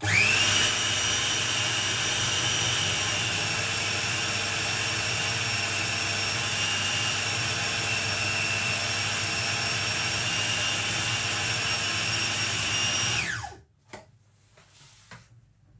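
Food processor motor running steadily with a high whine as it mixes butter, flour and baking powder into a dough. It spins up at the start and runs down with a falling pitch about 13 seconds in.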